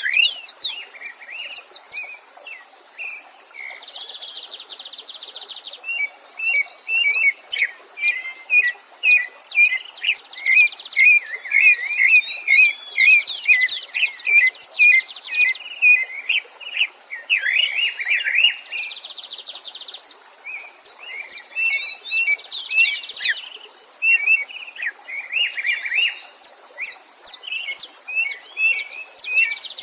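Several songbird species singing and calling at once, dense overlapping chirps, quick falling notes and warbled phrases, with a buzzy trill twice, over a faint steady rush of a stream.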